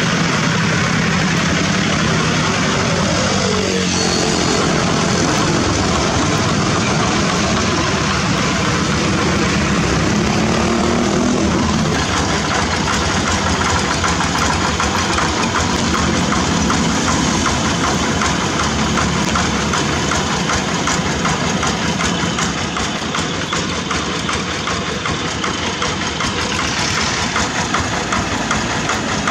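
Several two-wheel walking tractors' single-cylinder diesel engines running loud and steady together, with engine pitch rising and falling a few times.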